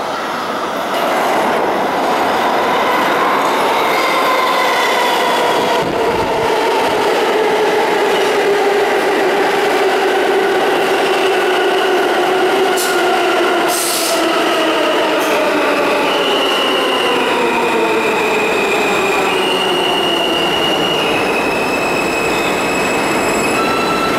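R160 subway train pulling into a station and braking to a stop: wheels running on the rails under a propulsion whine that falls steadily in pitch. As it slows in the second half, the whine turns into high tones that step from one pitch to the next.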